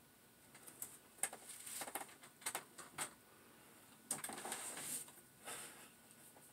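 Faint rustling of clothing and light creaks and clicks of a wooden chair as a person unfolds from a contortion pose and sits up, with a longer rustle about four seconds in.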